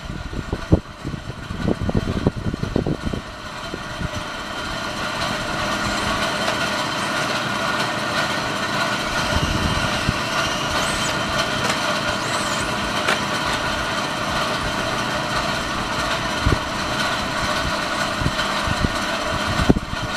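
A steady mechanical drone with several fixed tones, settling in about four seconds in. Before it there are irregular low rumbles and thumps.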